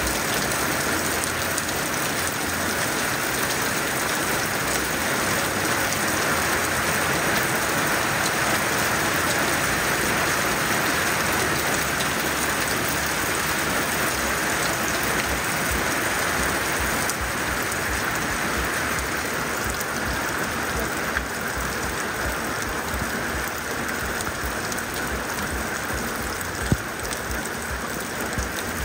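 Heavy monsoon downpour: a steady, dense hiss of rain, easing slightly toward the end, with a single sharp click near the end.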